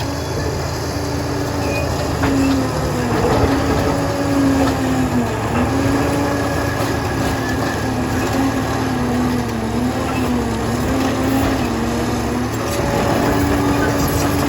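Liebherr 746 crawler bulldozer's diesel engine running steadily under working load. Its pitch dips and recovers a few times, about five seconds in and again around ten to twelve seconds, as the load on the engine changes.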